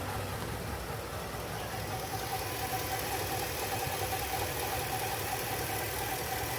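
Ford F-250 engine idling. About two seconds in, a steady, higher-pitched whine comes in over it. This is the unexplained noise, which seems loudest under the front of the truck.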